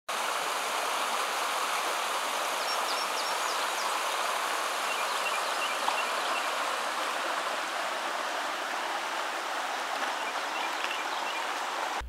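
Shallow stream rushing over rocks and gravel, a steady running-water sound, with a few faint short high chirps now and then.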